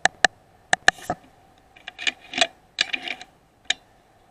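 Sharp metallic clicks and clinks, several in quick pairs, with a busier clattering stretch from about two to three and a half seconds in.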